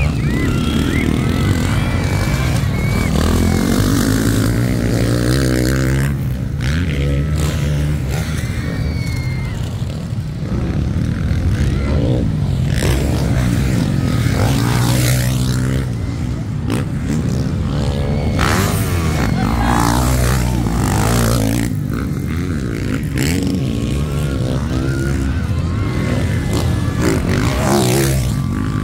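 Motocross dirt bike engines revving hard on the track, their pitch rising and falling again and again through the whole stretch.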